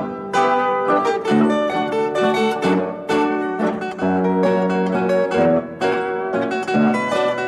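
Background music played on plucked strings, a quick run of picked notes with a steady pulse.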